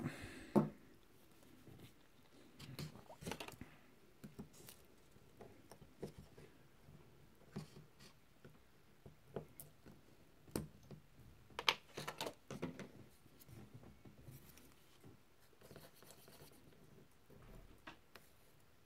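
Scattered small clicks, taps and scrapes of hands handling a small metal enamel paint tin, its lid and a paintbrush on a tabletop, with one sharper knock just after the start and a cluster of clicks about two-thirds of the way through.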